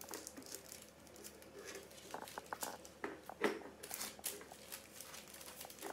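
Parchment paper crinkling and small plastic clicks as cookie cutters are pressed into soft dough and handled: scattered, soft rustles and ticks.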